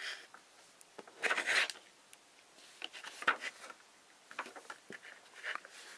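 Paper instruction booklet being handled: pages rustling and a hand rubbing over the paper in several short bursts, the loudest about a second in.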